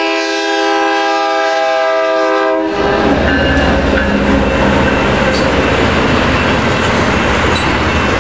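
BNSF freight locomotive's air horn sounding one steady blast that cuts off about two and a half seconds in. The locomotive then rolls past close by, its diesel engine running under a loud rumble of wheels on the rails.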